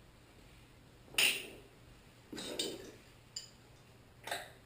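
Metal parts of a bearing-puller tool clinking against each other as the bearing cup is fitted: one sharp clink about a second in, a short clattering run in the middle, then a small tick and another clink near the end.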